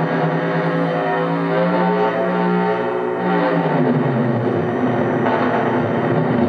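Synthesizer holding a sustained pitched note through the oscillograph's speaker, the signal that vibrates its mirror and laser. About three and a half seconds in, the pitch slides down, then sweeps back up near the end.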